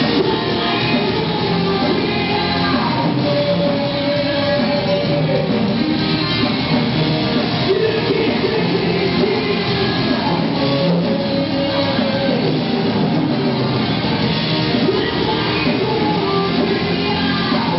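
A metal band playing live and loud: distorted electric guitars, bass and drums, with a singer's vocals over the top and long held notes twice.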